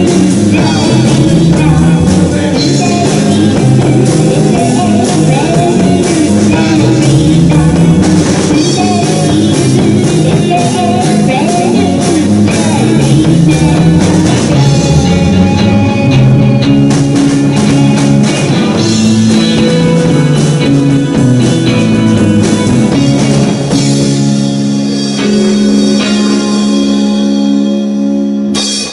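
Live rock band playing, with electric guitars, a drum kit and a woman singing. Near the end the band holds one long chord, which cuts off suddenly.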